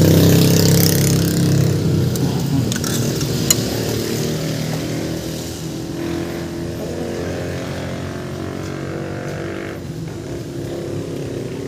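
Mitsubishi 4D56 four-cylinder diesel engine running during a test after a top overhaul, its idle speed just adjusted up after sitting too low. It runs louder for the first few seconds, then settles to a steady idle.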